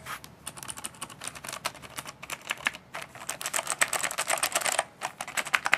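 Cherry MX Blue mechanical keyboard switches on a Corsair Vengeance K95 RGB being pressed in rapid flurries, a dense run of sharp clicks, with a short pause about five seconds in.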